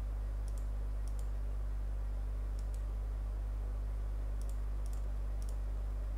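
Steady low electrical hum with faint computer mouse clicks over it, about six times, each a quick press-and-release pair.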